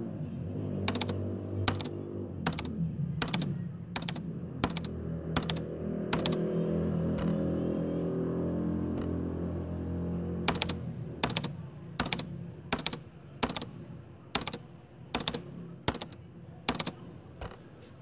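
A steady low hum made of several held tones, with sharp clicks coming about one and a half times a second. The clicks pause for a few seconds in the middle, and the hum dies away about two-thirds through while the clicks go on.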